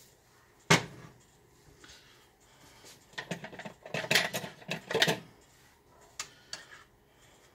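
Dishes and utensils clinking and clattering on a kitchen counter as a bowl of soup is set up with a spoon: one sharp clink about a second in, then a run of clatter a few seconds later, and a few light clicks near the end.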